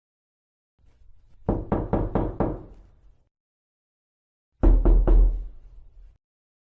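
Knuckles knocking on a wooden door: a quick run of about five knocks, a pause of about two seconds, then a second, louder run of about four knocks.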